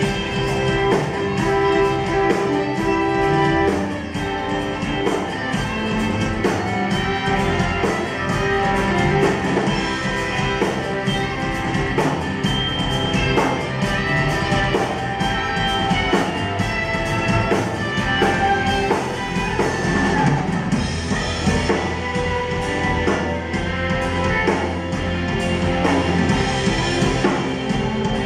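Live band playing an instrumental passage: guitars with a drum kit keeping a steady beat.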